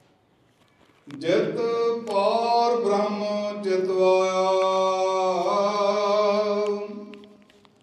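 A man chanting a Sikh prayer in one long, sustained melodic phrase, starting about a second in and fading out near the end.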